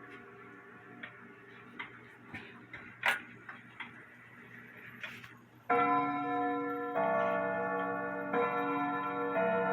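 Embee grandfather clock ticking with faint clicks while earlier rod tones fade, then about six seconds in its bim bam chime rods are struck, each strike ringing on with several tones at once, about one strike every second or so.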